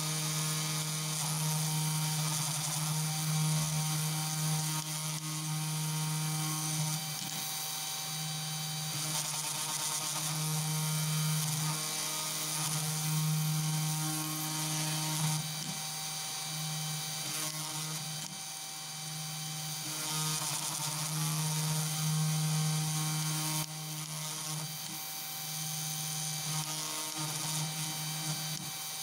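CNC2418 desktop router milling a copper-clad PCB with a V-shaped engraving bit: the spindle motor runs with a steady low hum and high whine. The level swells and dips every few seconds as the bit moves from one cut to the next.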